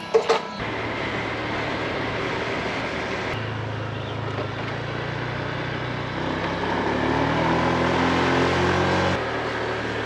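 Motor vehicle engine running over steady road noise, rising in pitch as it speeds up from about six seconds in, then cutting off abruptly about nine seconds in.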